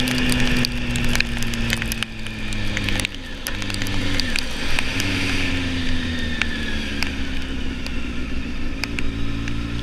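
Motorcycle engine running while riding, its note stepping down and falling as the bike slows, then rising again near the end. Scattered sharp ticks run throughout, with a brief hiss about five seconds in.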